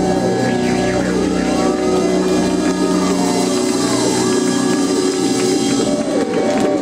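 Live rock band music: electric guitars hold sustained, ringing notes with curving pitch slides above them, the low held tones dropping away about halfway through.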